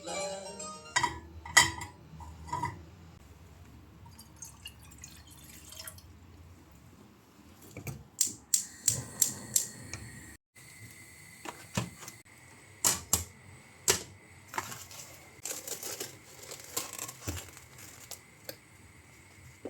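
Irregular light clicks and taps of small objects being handled, with a quick run of about four taps a second around the middle.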